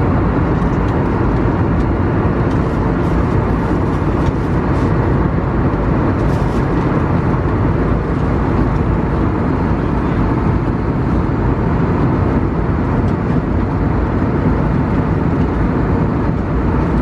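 Steady airliner cabin noise of an Airbus A320neo in cruise: an even, loud hiss of air and engine noise, heaviest in the low range, with no change in pitch.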